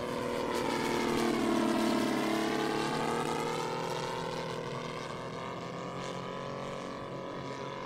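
Saito FG-90R3 three-cylinder four-stroke radial engine on a giant-scale RC Ki-43 Oscar flying past. It swells to its loudest about two seconds in, its pitch dips and rises again, then it fades slowly as the plane flies away.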